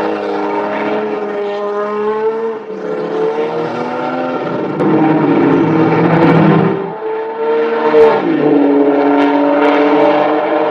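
Porsche 935 Turbo Kremer K3's twin-turbo flat-six racing engine running hard, its pitch rising and dropping several times. It gets louder about five seconds in, and there is one sharp crack near eight seconds.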